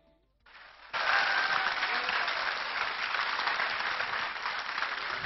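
Seated audience applauding: after a moment of near silence, the clapping swells in and is in full about a second in, then carries on steadily.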